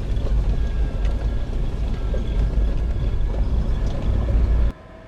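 Lexus GX470 SUV driving on a rough dirt road: a loud, steady low rumble from the tyres and body, which cuts off abruptly near the end.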